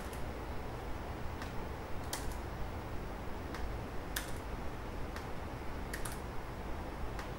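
Laptop keyboard keys tapped singly, about a dozen scattered clicks with uneven pauses between them, over a steady low hum.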